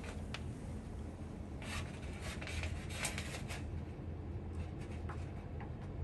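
Faint rubbing and scraping with a few light clicks as multimeter probes and their leads are handled against a water heater element's terminal screws, over a low steady hum.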